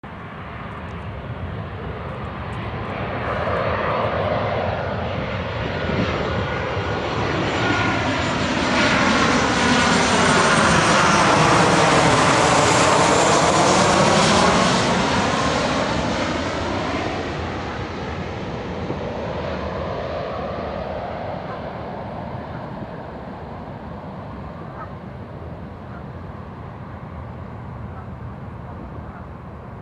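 Delta Boeing 737-800 jet flying past with its two CFM56 turbofan engines: the jet noise swells to its loudest about halfway through, with sweeping tones as it passes, then slowly fades away.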